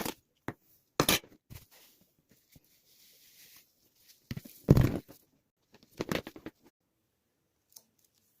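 A few short rustles and knocks from filling a glass jar with layers of pine cones and sugar. The loudest is a thump just under five seconds in.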